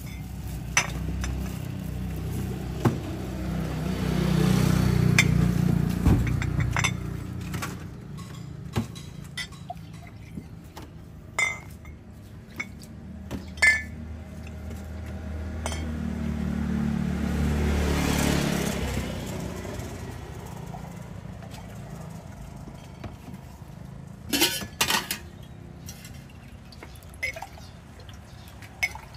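Glasses, a glass jar and a metal spoon clinking and knocking while limes are squeezed in a hand press and a drink is stirred, in short sharp knocks scattered through. Twice a passing vehicle's low rumble swells and fades, about five seconds in and again just past the middle.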